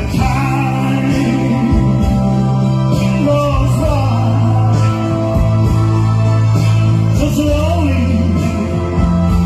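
Music: a slow song with long held bass notes and a melody line that bends up and down in pitch.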